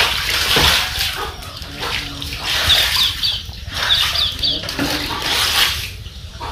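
Shallow floodwater on a concrete floor splashing and sloshing in irregular washes as someone moves barefoot through it. A few short high chirps come through in the middle.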